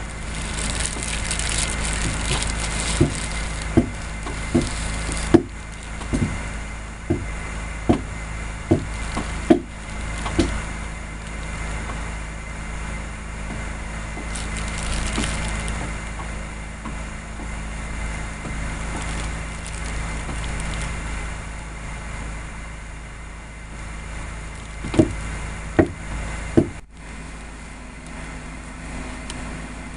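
Dull knocks of a tool striking wood, about one a second for several seconds, then three more near the end, over a steady low hum.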